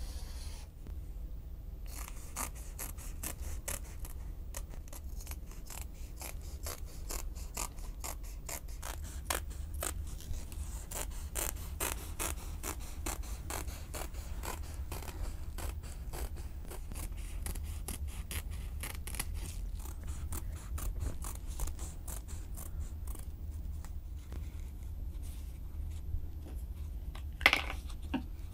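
Scissors snipping through a sheet of foam rubber in a long, fast run of short crunchy cuts, with one louder knock near the end.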